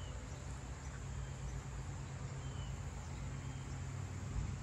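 Summer outdoor ambience: a steady high-pitched insect buzz over a low steady rumble, with a few brief bird chirps.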